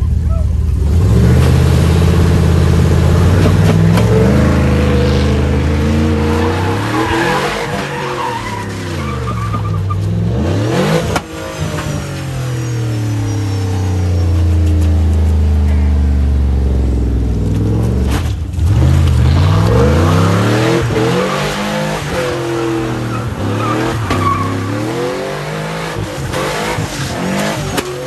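A car engine revving hard over and over, its pitch climbing and falling every few seconds, with two sharp dips in revs at about eleven and eighteen seconds in.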